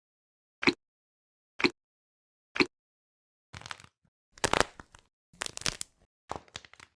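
Squishy NeeDoh-type stress toys being handled and squeezed: three short squishes about a second apart, then a few seconds of denser crackly, crunching squishing.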